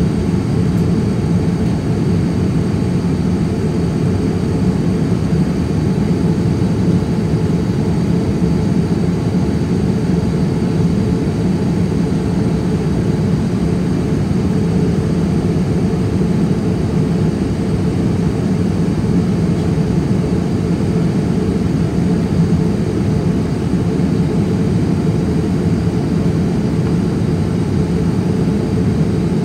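Steady low cabin drone of a Boeing 787-9 Dreamliner airliner heard from inside the cabin, even and unchanging throughout.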